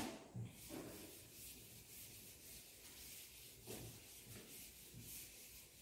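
Faint rubbing of a duster across a chalkboard, erasing chalk writing in a few soft strokes.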